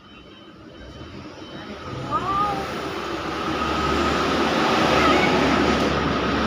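A wide rushing noise with a low rumble that grows louder over the first few seconds and then holds steady. Over it, a Nias hill myna gives a couple of short whistled notes, one about two seconds in and one about five seconds in.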